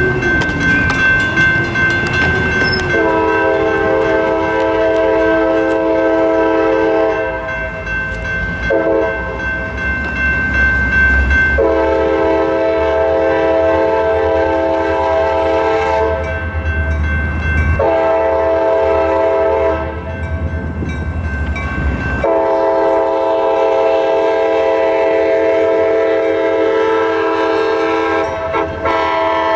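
A diesel locomotive's multi-chime air horn blowing the grade-crossing signal: long, long, short, long. The crossing's electronic bells ring underneath, and a low engine rumble swells in the middle as the locomotive approaches.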